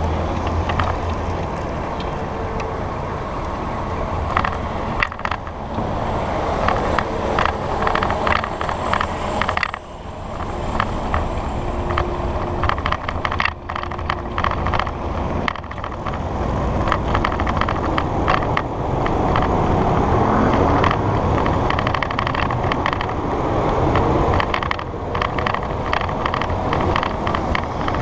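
Bicycle riding over city street and concrete sidewalk, heard from a camera mounted on the bike: a steady rush of wind and tyre noise with frequent small clicks and rattles from the bike over bumps and slab joints. Street traffic runs underneath.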